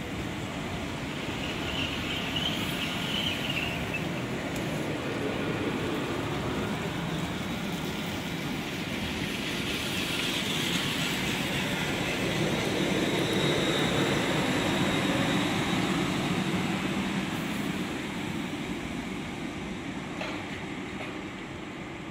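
A train moving through the station: its rumble builds to a peak a little past halfway and then fades away, with brief high squeals near the start and in the middle.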